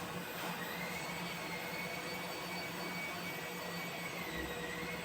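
Machinery running: a steady whir and hiss with a faint whine that rises about half a second in, dips about four seconds in and rises again.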